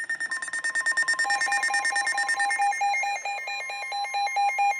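Weather alert radio sounding an alert: a fast, evenly pulsing electronic beeping made of several tones at once, with a steady lower tone beneath it. A further pulsing tone joins about a second in, and the beeping grows louder and warbles in pitch toward the end.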